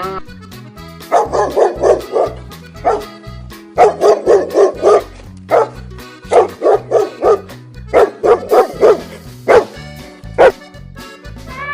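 Dog barking repeatedly in quick runs of several sharp barks with short pauses between, over a background music track.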